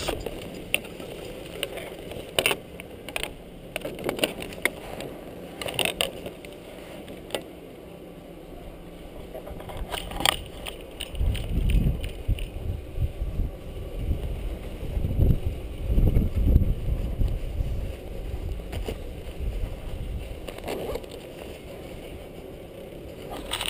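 Chairlift ride: wind buffeting the camera microphone in gusts, strongest about halfway through, with scattered clicks and knocks from the chair and the rider's gear.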